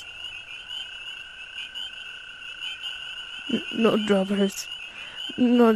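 A toad's unbroken high trill, steady in pitch. A voice speaks briefly a little past halfway and again near the end.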